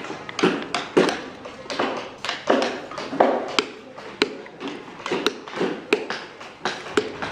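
Wood carvers' mallets tapping on chisels, several at once. The knocks come irregularly, a few each second.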